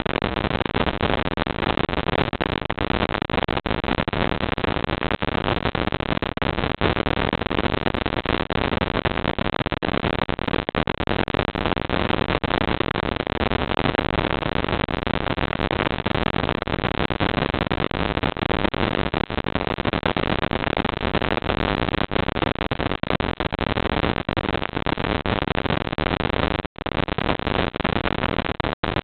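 Steady, even rushing noise on a security camera's audio track, broken by two brief dropouts near the end.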